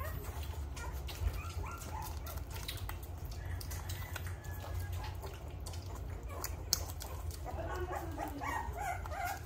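Three-week-old American bully puppy whimpering and squeaking while it mouths raw meat from fingers, with small scattered licking clicks, over a steady low hum.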